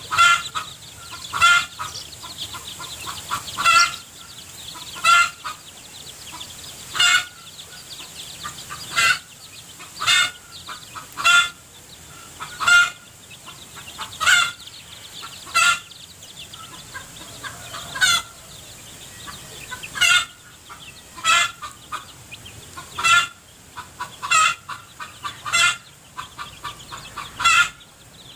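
Mother hen clucking steadily, one short cluck every second or two: the running cluck of a hen leading her chicks while foraging.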